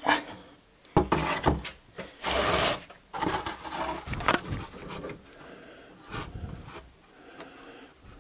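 A plastic basin knocking and scraping against a wooden board as it is shoved into place under a car's automatic transmission pan. There are several sharp knocks, a loud scrape a little over two seconds in, and then quieter handling with a couple of taps.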